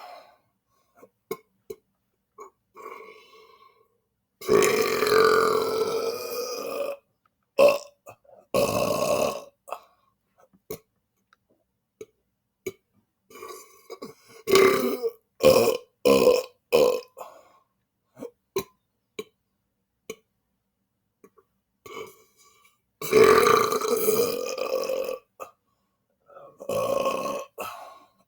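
A man belching on purpose, again and again. There are two long, drawn-out burps of about two and a half seconds each, several shorter burps, and a quick run of short burps in the middle, with small clicking sounds in the pauses between them.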